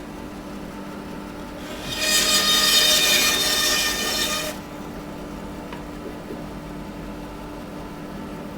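Bandsaw running with a steady hum. About two seconds in, the blade cuts through a block of wood for about two and a half seconds, loud and hissing, then runs free again.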